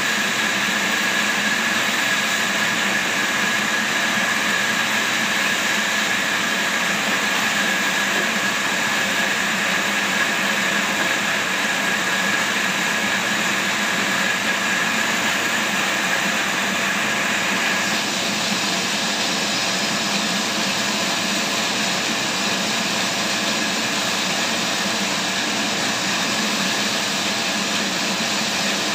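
Sawmill saw running through a big squared log lengthwise, a steady machine whine over a dense wash of cutting noise. About two-thirds of the way through, the whine drops out and the cutting noise turns a little brighter.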